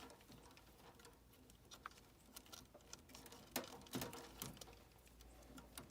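Near silence with faint scattered clicks and taps from hands working on the inside of a gas furnace, with two louder knocks a little past the middle.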